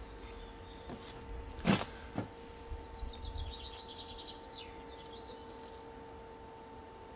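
A mobile phone set down on a tiled table top with a knock about a second and a half in, a lighter knock just after, then a bird chirping a quick run of notes. Under it all runs a steady electrical hum while the kettle draws about 1000 watts from the portable power station.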